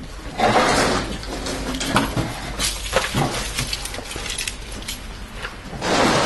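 A car door being opened, with a few sharp clicks around three seconds in amid uneven rustling noise.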